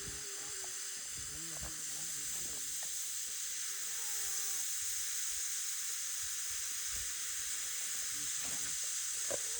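Colour-change smoke fireworks burning with a steady, high hiss.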